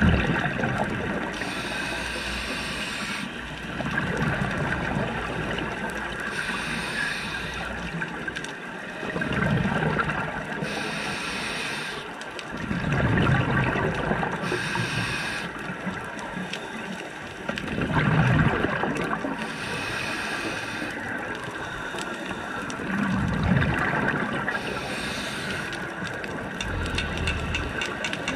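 Scuba diver breathing through a regulator, heard underwater: a hiss on each inhale alternating with a burst of rumbling, gurgling exhaust bubbles on each exhale, repeating every four to five seconds.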